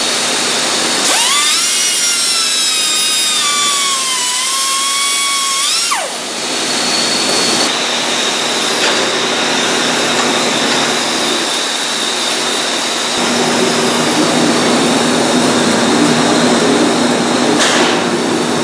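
Handheld high-speed cutoff tool cutting through a steel pin of a conveyor bed chain to take out the excess links. Its whine sags as the wheel bites and recovers, then drops away about six seconds in, leaving a steady rushing hiss.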